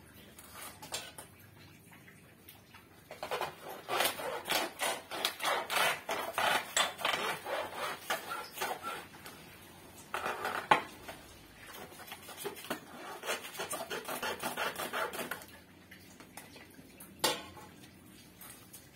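Small hand saw sawing down through packed potting soil and roots, rapid rasping strokes in two spells of several seconds each. A sharp knock comes between the spells and another near the end.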